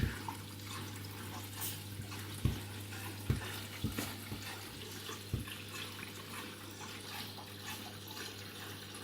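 Candy washing machine taking in water for the fabric-conditioner rinse: water hissing into the drum over a steady low hum, with a few soft knocks along the way.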